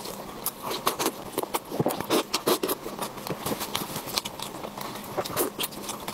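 Sauce-covered kiln-roasted chicken being torn apart by gloved hands, close-miked: a quick run of sticky clicks, crackles and wet tearing.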